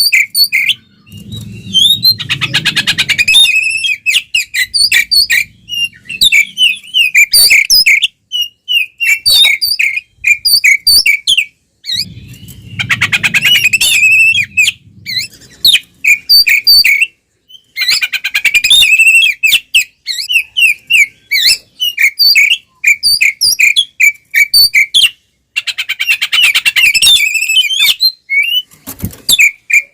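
Oriental magpie-robin (kacer) singing loudly in its aggressive fighting song: fast, varied runs of high chirps and whistles. Three times the song breaks into a harsher rattling passage.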